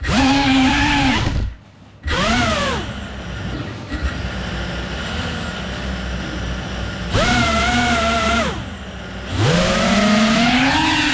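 FPV quadcopter's brushless motors whining as the throttle is worked, the pitch swooping up and falling back in bursts over a steady low propeller hum. The whine drops out briefly about one and a half seconds in and dips again near nine seconds, then climbs back and holds high.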